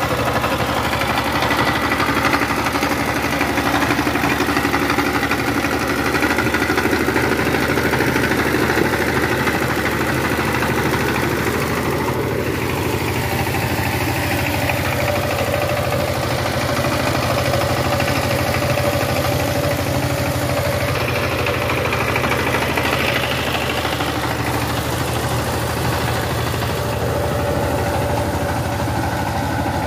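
Power tiller's single-cylinder diesel engine running steadily at idle, a continuous low firing chug.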